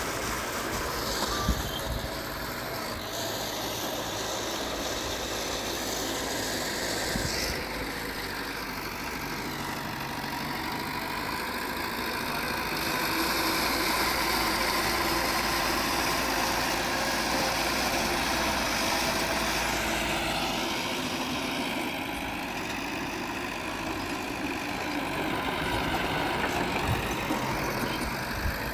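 Diesel engines of earthmoving machinery running steadily, a little louder for several seconds in the middle.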